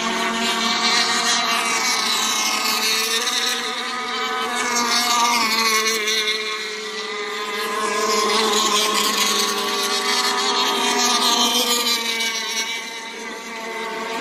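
Engines of radio-controlled racing boats running flat out, a high whine that swells and fades as the boats pass, easing off about seven seconds in and again near the end.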